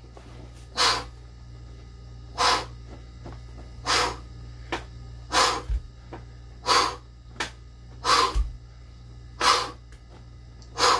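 A man's forceful breaths during incline dumbbell presses, one short push of breath with each rep, eight in a row about every second and a half. A low steady hum runs underneath.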